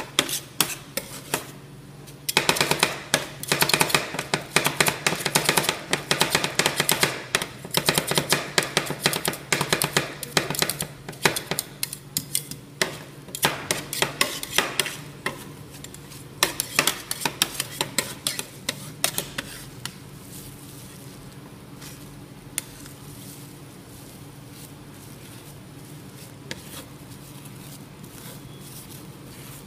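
Metal spatulas rapidly chopping and tapping against a steel cold plate as ice cream mix is chopped in, a dense clatter that thins out after about twenty seconds into quieter scraping with only occasional clicks as the mix is spread flat. A steady low hum runs underneath.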